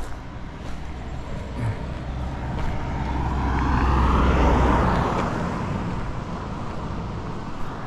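A car driving past on the road. Its tyre and engine noise grows to its loudest about halfway through, drops in pitch as it passes, and fades away.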